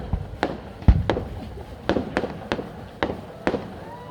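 Fireworks display: a rapid, irregular series of aerial shells bursting, about eight or nine sharp bangs with short rumbling tails, the loudest about a second in.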